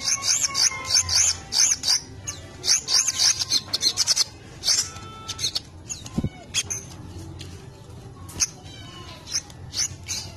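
Caged sogok ontong (brown-throated sunbird) singing rapid high chirps and twitters, a song made up of mimicked white-eye (pleci) calls. The notes are densest in the first half and sparser after. There is a soft thump about six seconds in.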